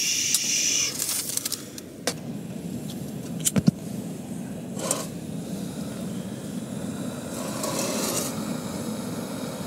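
Camp stove burner running steadily under a cooker of rice, with rustling and a few sharp clicks and knocks as things are handled and set on the cooker.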